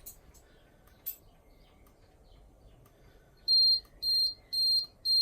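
Household fire alarm system going into alarm after a manual call point is set off: a high-pitched electronic beep pulsing about twice a second, starting about three and a half seconds in. Before it, only a couple of faint clicks.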